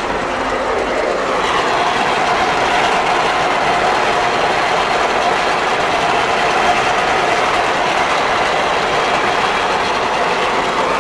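A Fortschritt E303 self-propelled windrower running steadily while mowing hay, heard from inside its cab: engine and cutting header blend into one even mechanical noise.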